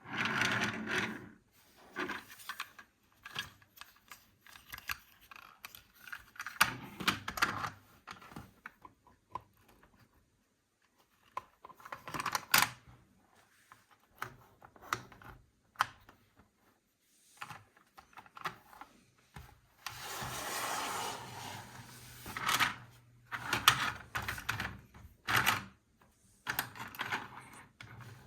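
Plastic toys and their packaging handled close up: irregular clicks, taps and rattles, with a few longer noisy stretches, the longest lasting about two seconds about two-thirds of the way in.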